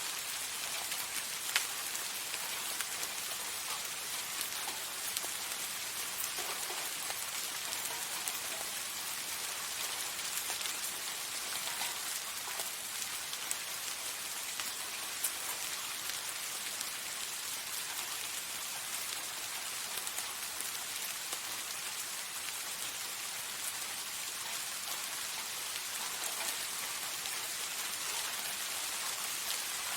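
Steady soft rain falling on a surface, an even hiss with scattered individual drops ticking, a few of them louder.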